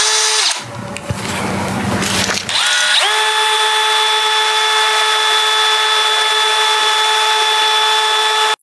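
Cordless drill spinning a mixer paddle through potting soil and water, stirring it into mud. It runs unevenly at first, then about three seconds in the motor speeds up to a steady whine, which stops abruptly near the end.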